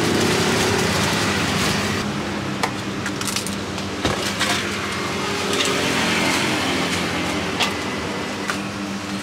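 Street noise with a steady engine hum from road traffic, and a few light clicks and rustles as a plastic bag and jar lids are handled.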